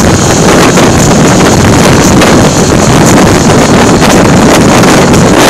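Loud, steady wind buffeting the microphone while riding a motorcycle, with vehicle noise mixed underneath.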